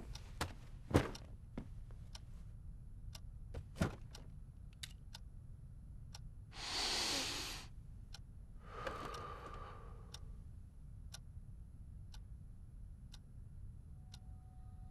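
Clock ticking about once a second in a quiet room, with two louder clicks in the first few seconds. In the middle come two long breathy sounds, one after the other.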